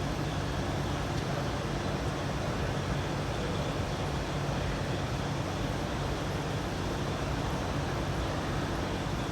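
Steady low mechanical hum over a constant background rumble, with no change in level.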